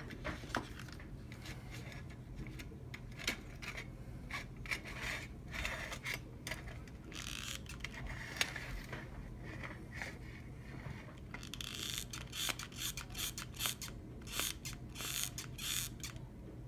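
Scattered small clicks and scrapes of hands working a hot glue gun and wired parts into a metal Altoids tin, over a low steady hum. The clicks come thicker in the second half.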